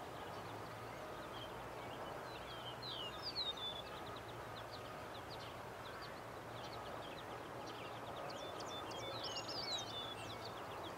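Birds chirping in short, quick calls, busiest about three seconds in and again near the end, over steady open-air background noise with a faint low hum.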